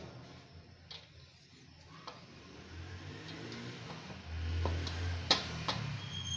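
A metal spoon scooping boiled rice out of a steel strainer, clicking and tapping a few times against the metal, the sharpest tap about five seconds in, with a brief low rumble just before it.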